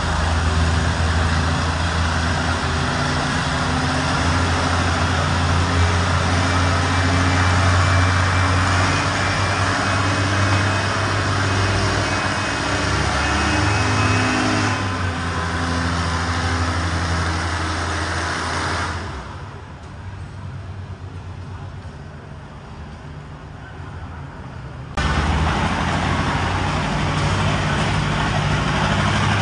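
Antique tractor engine working hard under load while pulling a weight-transfer sled, a loud steady drone. About 19 s in it falls away to a much quieter level, and near 25 s loud tractor engine running starts again suddenly.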